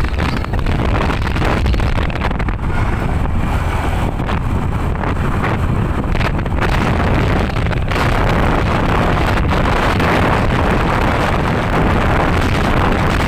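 Wind buffeting the microphone over steady vehicle engine and road noise while travelling along the road; no horn tune is heard.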